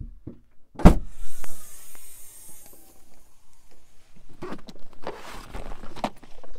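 A car's tailgate unlatches with a loud thump about a second in and swings open with a fading hiss. In the second half a hard-shell suitcase is scraped and knocked against the boot as it is pulled out.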